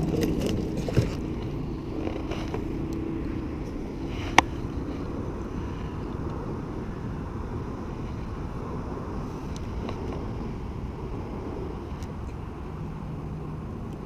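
Small electric trolling motor running steadily, a low rumble with a faint hum. Two sharp clicks sound about one and four seconds in.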